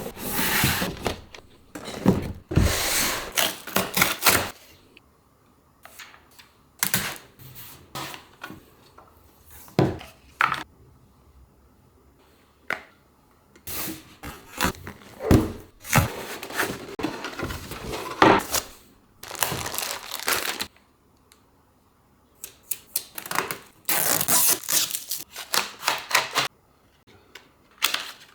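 Computer parts and their packaging being handled: irregular clicks, light knocks and short bursts of rustling and tearing, with brief pauses between.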